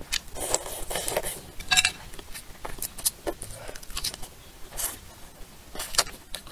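Close-miked mouth sounds of eating spicy shrimp: sucking at the sauce, then biting and chewing. An irregular string of wet smacks and sharp crackles runs throughout.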